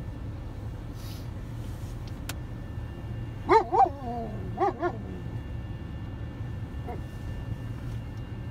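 A dog barks four times, in two quick pairs about a second apart, over a steady low rumble.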